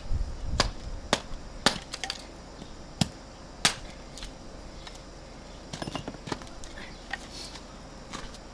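Hatchet splitting kindling on a wooden chopping block: a run of sharp chops, about one every half second, through the first four seconds, then fainter knocks of the split sticks being handled.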